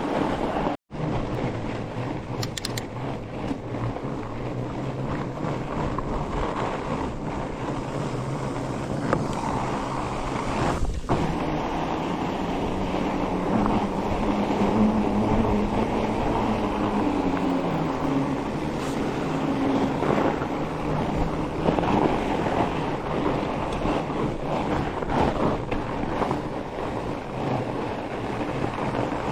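Fat bike tires rolling over a groomed snow trail at speed, with wind rushing over the microphone, and a low hum that rises and falls in pitch. The sound cuts out for a moment about a second in.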